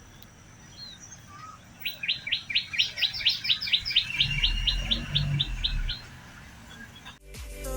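A bird singing a fast run of repeated high chirps, about five a second for some four seconds, with a few scattered calls before it.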